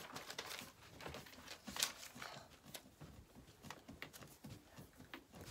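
Sheets of paper being handled and turned over, a string of soft, irregular rustles and crackles with the sharpest crackle a little under two seconds in.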